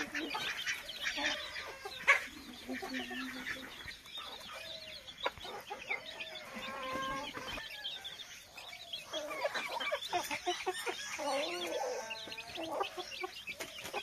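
Desi chickens clucking as they feed, mixed with many quick high chirps and a few sharp clicks, the loudest about 2 seconds in.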